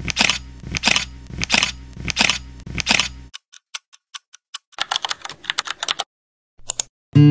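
Edited-in clicking sound effects, like keyboard typing. A slow, even run of about six clicks is followed by a pause, then a quicker patter of fainter clicks. Acoustic guitar music starts right at the end.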